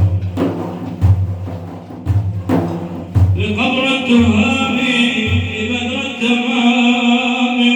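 Religious praise chanting with a drum: deep drum beats about once a second, joined about three seconds in by a long sustained sung voice.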